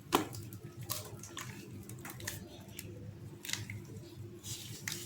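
Gritty sand-and-cement lumps crumbling in water: one sharp crack just after the start, then scattered gritty crackles, thickening into a denser crumbling patch near the end.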